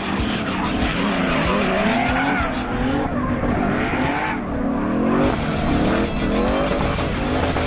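Turbocharged V8 BMW E30 drifting: the engine revs climb and fall again and again over a steady screech of sliding tyres.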